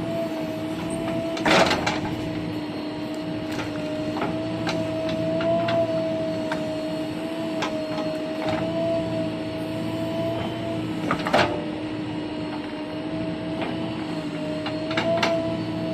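Bulldozer running at a steady, unchanging pitch, with sharp knocks, the loudest about one and a half seconds in and again about two-thirds of the way through, and lighter clicks in between.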